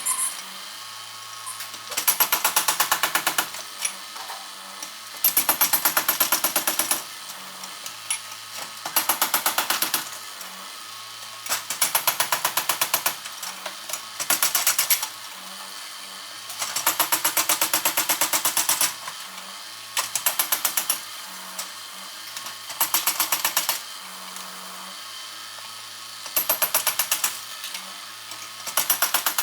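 Rapid mechanical hammering or rattling from demolition machinery. It comes in about ten bursts of one to two seconds each, every burst a fast, even train of strikes, with a quieter low hum between bursts.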